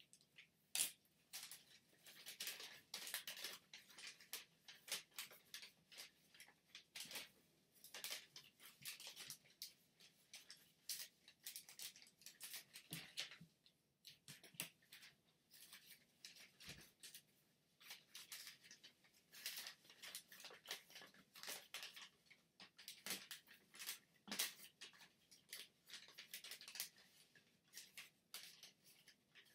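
Origami paper crackling and rustling as it is folded and creased by hand, in quick irregular crinkles with brief pauses.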